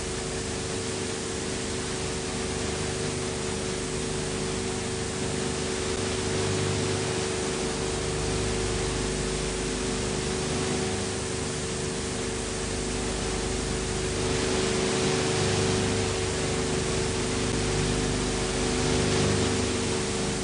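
Steady hiss with a constant hum tone underneath: background noise of an old film transfer, with no sound from the work shown.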